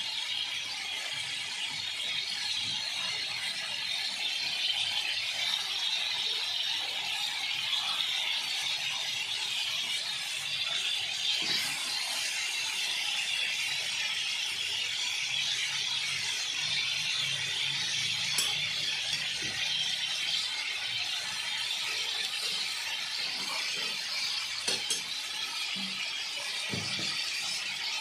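Chicken, onion and tomato sizzling in oil in a wok, a steady hiss, with a few faint clicks of the tongs and spatula against the pan.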